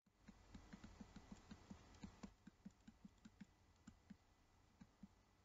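Faint run of quick clicks, about six a second for some three seconds, then a few scattered clicks.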